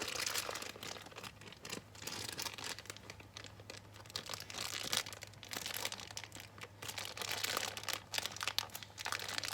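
Plastic toy packaging crinkling and crackling in irregular bursts as it is handled and worked at to get it open.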